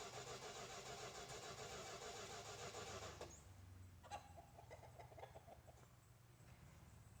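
1971 Dodge Dart's 318 V8 running with a fast, even pulse, then stopping abruptly about three seconds in. About a second later there is a click, then a short run of faint rapid pulses that fades out.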